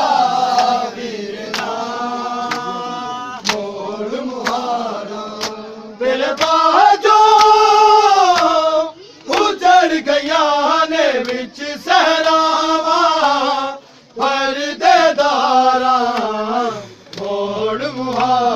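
Men chanting a noha, a mourning lament sung in long melodic phrases with short breaks between them, punctuated by sharp slaps of hands beating on bare chests (matam).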